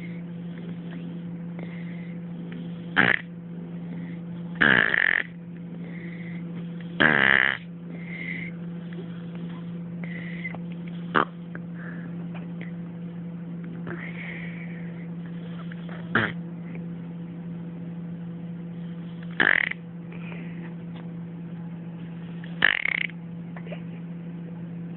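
Snoring: about seven loud, short snorts at uneven gaps of two to five seconds, with softer breaths between, over a steady low hum.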